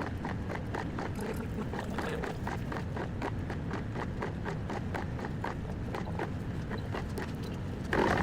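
Shipboard noise on the icebreaker Shirase pitching in heavy seas: a steady low rumble with rapid, irregular clicking and rattling, then a sudden louder rush just before the end.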